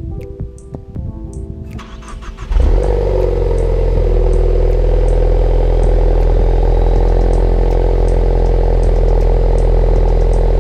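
Ford Focus ST with a resonator delete being started from cold: the engine catches about two and a half seconds in and settles into a loud, steady cold idle with a deep exhaust rumble. Background music plays before it starts.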